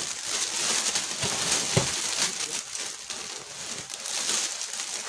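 Plastic garment bags rustling and crinkling irregularly as they are handled, with a short thump just under two seconds in.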